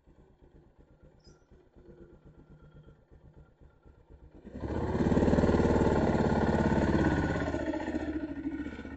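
Enduro dirt bike riding along a bumpy dirt trail, its engine faint at first, then suddenly loud for about three seconds as it passes close by, easing off near the end.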